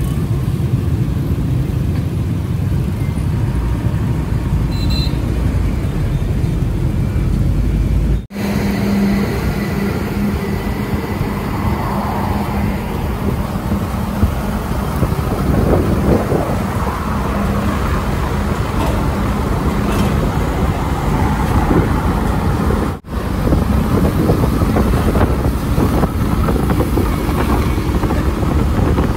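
Street traffic: trucks and other vehicles running past with a steady low engine rumble. The sound drops out briefly twice, about 8 and 23 seconds in.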